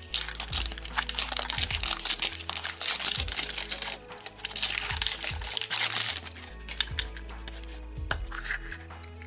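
Plastic wrapper crinkling and tearing as it is peeled off a Fash'ems blind toy capsule. Background music with a steady bass line and beat plays throughout. The crinkling stops about six and a half seconds in.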